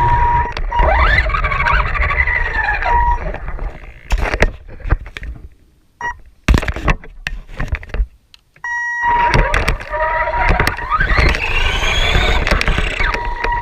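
Electric RC car motor and speed controller whining, with a steady high whine that keeps cutting in and out. The pitch rises sharply as the car speeds up, about a second in and again near the end. In the middle there is a quieter spell with scattered clicks and knocks.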